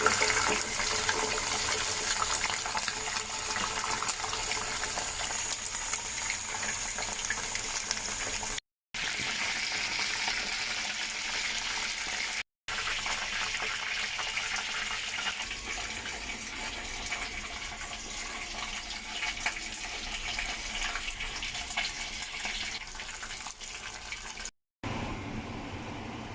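Chicken wings deep-frying in hot oil: a steady, crackling sizzle, cut off by a few brief silent gaps.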